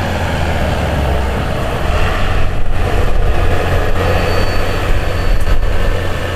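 Diesel engine of a 2013 Peterbilt 4x4 service truck running hard under full load as it drags a pulling sled, a loud, steady, deep rumble that gets louder about two seconds in.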